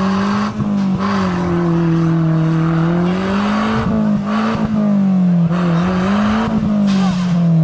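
A 4x4 vehicle's engine running hard at high revs, its pitch rising and falling over several seconds.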